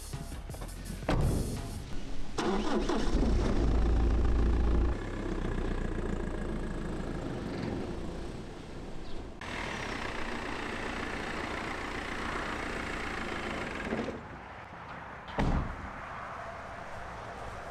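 BMW E46 pickup's engine cranking and catching about two seconds in, running loudly for a few seconds, then settling into a steady run. There is a door thud just before the start and a sharp knock near the end.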